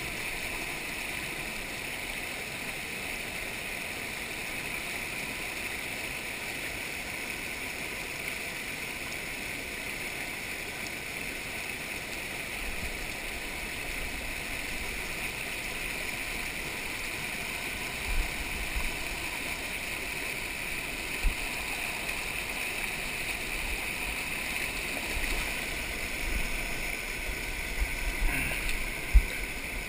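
Creek water rushing steadily, an even hiss. Low rumbles come in during the second half, with a few sharp knocks, the loudest near the end.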